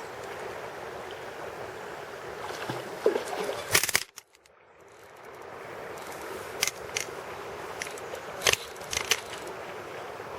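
Steady rush of flowing river water, broken by several sharp knocks and clicks, the loudest a pair about three and four seconds in and another pair near the end. Just after the first pair the sound drops out almost to silence for about a second, then fades back in.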